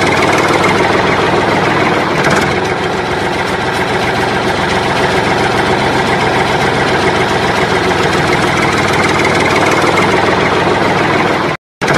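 An engine running steadily at idle, with no change in speed, cut off for a moment near the end.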